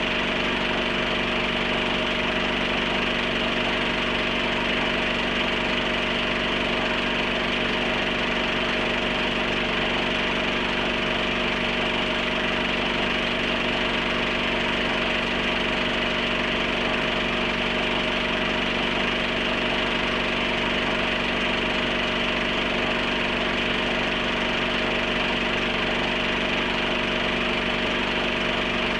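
Steady mechanical whirring hum with hiss, unchanging throughout.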